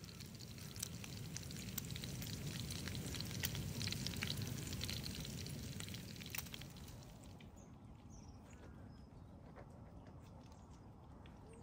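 Food sizzling and crackling in a frying pan on a small gas camping stove, loudest in the first half and settling to a quieter sizzle after about seven seconds.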